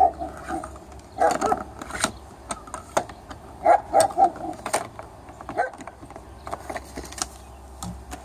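A big dog barking in short runs of two or three barks, about a second in and again near four seconds, with fainter barks after. Sharp clicks fall between the barks over a steady low hum.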